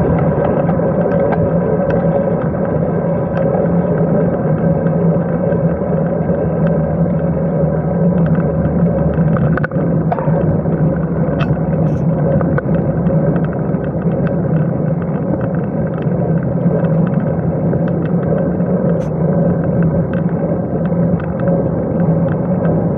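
Steady wind rush and tyre-on-road rumble from a road bike riding at speed, heard through a handlebar-mounted camera's microphone as a loud, even drone with a few faint ticks from bumps in the road.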